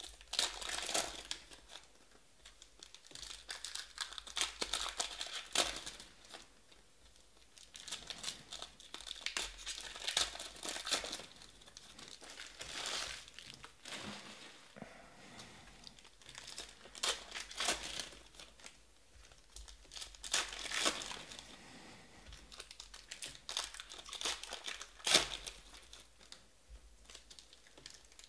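Panini Select basketball trading cards being handled and flipped through by hand, crinkling and rustling in irregular bursts every second or two.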